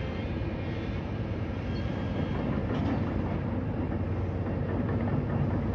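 Demolition excavator running with a steady low rumble, the sound of heavy machinery working on a site.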